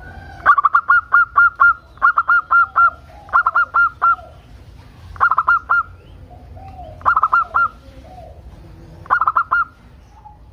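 Zebra dove (perkutut) singing its staccato cooing song: six short bursts of quick, clear notes, repeated every second and a half to two seconds.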